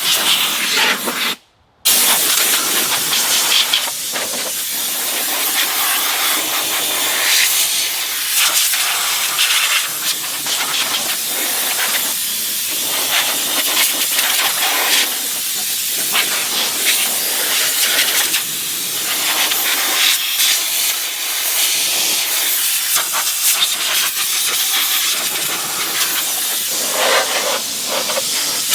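Compressed-air blowgun hissing in long blasts as it blows dust and dirt out of a truck's engine bay, the hiss rising and falling as the nozzle moves, with a brief stop about a second and a half in.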